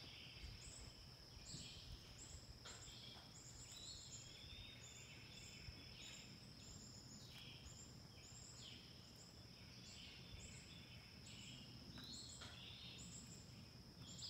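Quiet woodland ambience: a steady high-pitched insect drone, with rows of short, high chirps and calls repeating throughout.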